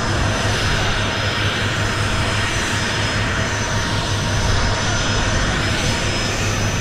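An aircraft engine running steadily nearby: a constant low hum with a faint high whine over it.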